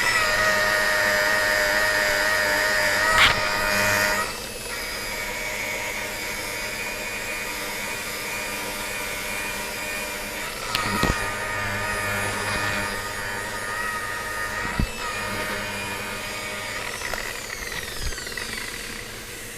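Electric polishing machine running on a plastic headlight lens, polishing compound into it: a steady motor whine that drops to a lower, quieter speed about four seconds in, with a few sharp clicks, and winds down near the end.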